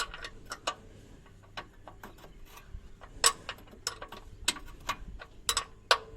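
Ratchet wrench clicking in short, uneven strokes as a stubborn engine sump drain plug is wound out, tight the whole way; the owner wonders whether it has been cross-threaded.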